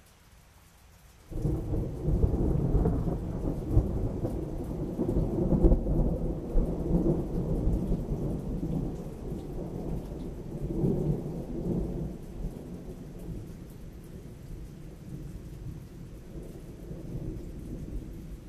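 Thunder: a sudden crack about a second in, then a long low rumble that rolls in several swells and slowly fades.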